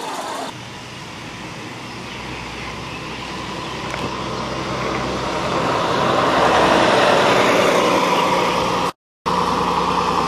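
A bus engine running as the bus drives past, growing louder as it approaches and loudest as it goes by, then easing as it pulls away. The sound drops out for a moment near the end.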